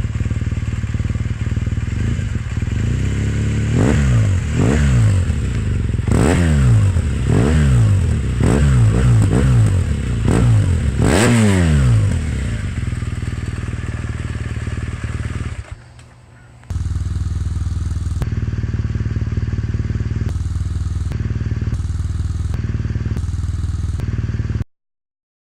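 2016 BMW R1200RS boxer-twin engine idling through its slip-on exhaust, then blipped about nine times in quick succession, each rev rising and falling straight back to idle. It then idles steadily until the sound cuts off abruptly near the end.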